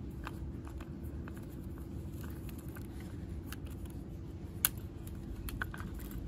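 Folding Allen key turning the bar-cover bolt of an electric pole chainsaw, with faint scattered clicks of metal on metal and plastic and one sharper click about four and a half seconds in, over a steady low hum.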